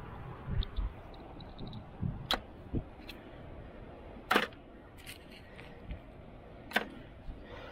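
Sharp clicks and knocks of small metal finds being handled on a fishing magnet: three louder clicks about two seconds apart, fainter ones between, over a low rumble.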